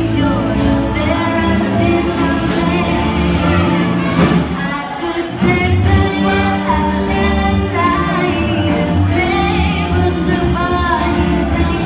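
Live big band playing swing dance music, saxophones and rhythm section with a singer over a steady drum beat.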